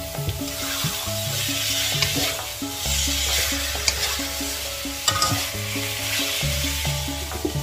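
A metal spatula stirs and scrapes green beans and potatoes in chilli paste around an aluminium wok, with frying sizzle and sharp clinks of the spatula against the pan. Background music with a stepping bass line plays underneath.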